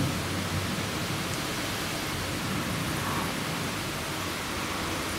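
Steady hiss of rain during a thunderstorm, with the tail of a low thunder rumble dying away at the start.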